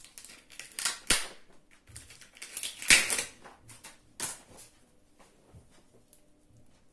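Kitchen utensils and objects clattering while someone looks for a knife: several sharp knocks and clicks, the loudest about three seconds in.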